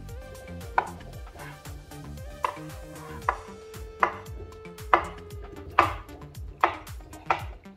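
A kitchen knife cutting boiled eggs, about eight sharp strokes landing on the cutting board, roughly one every second.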